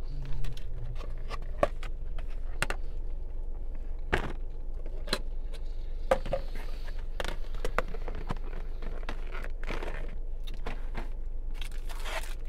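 Food packaging being handled: irregular rustling, crinkling and tearing in short bursts, over a steady low hum.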